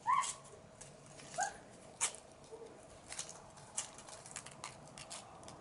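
An English Goldendoodle puppy giving short, high whimpering squeaks, one just at the start and another about a second and a half in, with a fainter one after. Scattered light clicks and rustles run between them.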